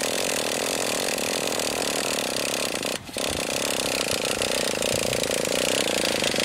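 Small gas-powered RC car engine running with a steady high buzz, dropping out for a split second about halfway through before carrying on.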